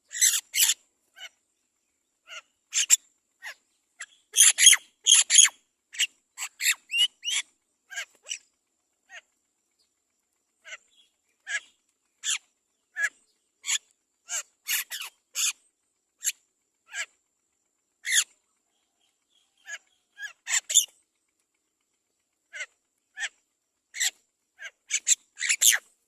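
Mynas calling at the nest: short, sharp chirps and squawks coming in irregular clusters, busiest about four to five seconds in and again near the end.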